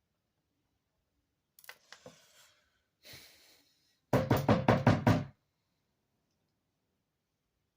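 A quick run of about nine loud knocks lasting just over a second, after a few faint clicks and scrapes.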